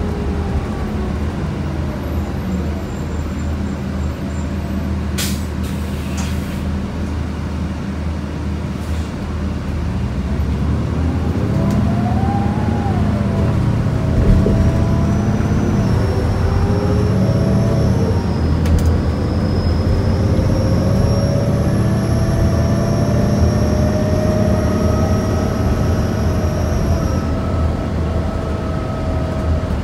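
Inside the cabin of a 2008 New Flyer C40LFR transit bus: its Cummins Westport ISL-G natural-gas engine and Allison B400R6 automatic transmission running. From about ten seconds in it grows louder as the bus gets under way, the pitch rising and falling through the gear shifts, then settling into a slowly rising whine. A couple of sharp clicks stand out, about five seconds in and near the middle.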